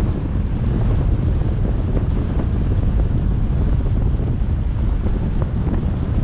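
Steady low rumble of a moving car: tyre and road noise with wind buffeting the camera's microphone.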